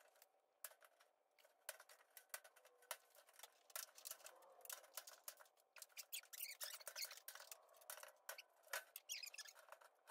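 Aviation tin snips cutting welded wire mesh: an irregular string of sharp metallic snips, one for each wire clipped, several a second at times, with some scratchy rustling of the mesh in between.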